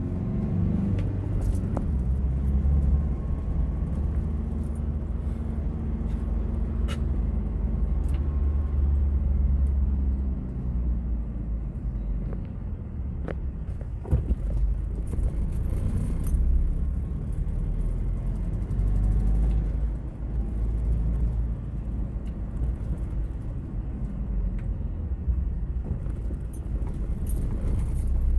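Car engine and road noise heard from inside the cabin while driving: a steady low hum that shifts in pitch as the car speeds up and slows, with a few light clicks.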